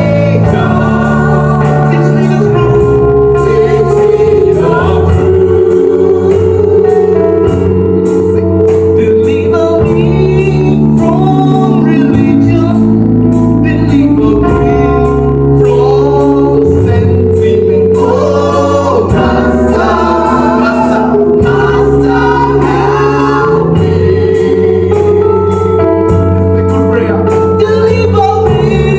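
Live gospel worship song: a male lead singer with a group of backing singers, over music with sustained low chords and a steady beat. The sung lines include 'Teacher, teach me the truth' and 'Deliver me from myself'.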